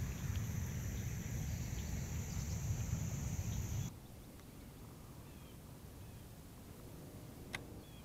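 Low rumble of wind or handling on the microphone under a steady high-pitched drone, both cutting off sharply about four seconds in; then quiet outdoor background with a few faint bird chirps and a single sharp click near the end.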